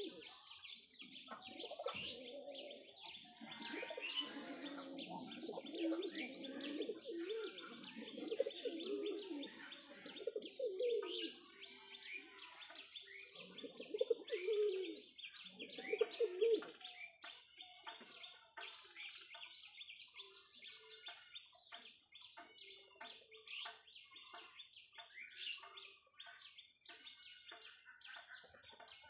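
Domestic pigeons cooing, most in the first ten seconds or so and again about 14 to 16 seconds in, over steady chirping of small birds.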